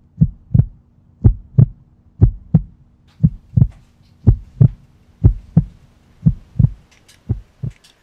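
Heartbeat sound effect: paired low thumps in a steady lub-dub, about one beat a second, over a faint steady hum.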